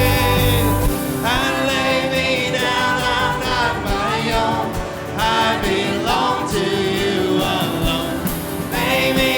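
Live worship band music with singing. The low bass drops out about a second in, leaving the voices over lighter accompaniment.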